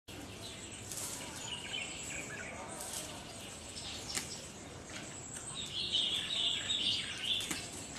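Outdoor background noise with birds chirping: a run of high chirps about three quarters of the way through, and a few scattered sharp clicks.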